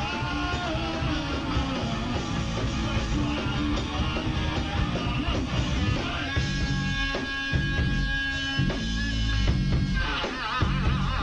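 Live rock band playing a loud song on drums and electric guitar. From about six seconds in, a long high note is held for some four seconds.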